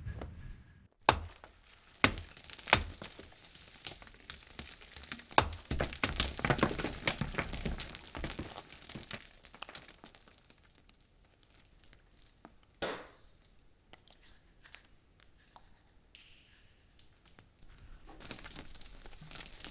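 Studio foley and stock effects: a few sharp knocks, then a spell of dense crackling and crumbling, a single heavy thud about 13 seconds in, and after it only scattered light ticks.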